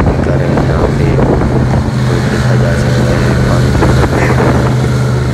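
Airboat's engine and big air propeller running as a steady low drone as the boat skims across shallow floodwater.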